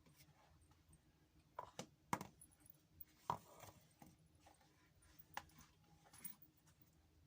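Near silence broken by a few faint, short clicks and light knocks, scattered irregularly, the clearest two a little past two and three seconds in.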